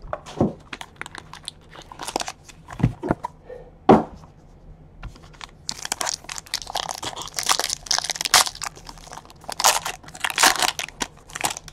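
Scattered taps and knocks as a cardboard trading-card box and its pack are handled, then from about six seconds in the gold foil wrapper of a 2017 Panini Gold Standard football pack being torn open and crinkled.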